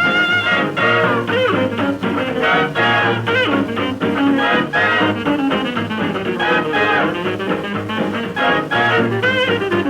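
Hot jazz dance band playing from a 1930 78 rpm record, the treble dull and cut off. A held brass chord ends about half a second in, and the band goes into a busy, fast-moving passage.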